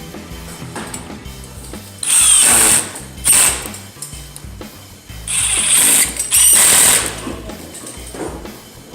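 Cordless impact driver running in four short bursts, the first and third longest, as it drives screws with a magnetic bit holder and Phillips #2 bit.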